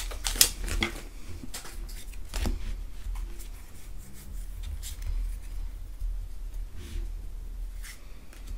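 Pokémon trading cards being pulled from an opened foil booster pack and flicked through one by one: scattered soft clicks and slides of card stock, over a low steady hum.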